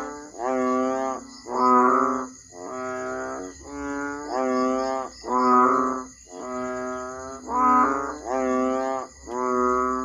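Asian painted frogs (banded bullfrogs, Kaloula pulchra) calling: a run of drawn-out, low, nasal calls at about one a second, louder and softer calls alternating.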